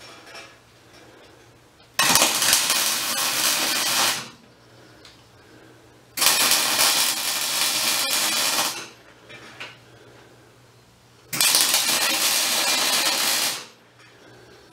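Arc welding on a steel frame: three separate welds of about two seconds each, the arc crackling and buzzing steadily during each one, with short pauses between them.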